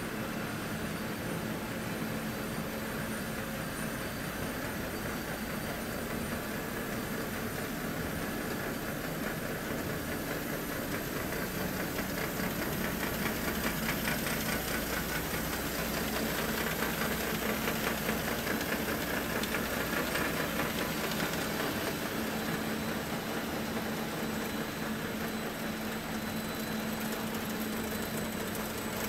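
Müller Martini Acoro A5 perfect binder running: a steady machine hum under a fast, even mechanical clatter, a little louder in the middle.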